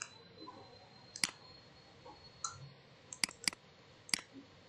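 Computer mouse clicks: about six short, sharp clicks at uneven intervals, with a quick pair about three seconds in. They are the clicks of selecting edges in CAD software.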